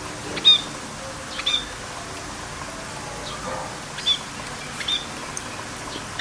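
A small bird giving short, high chirps about once a second, over a steady hiss of rain.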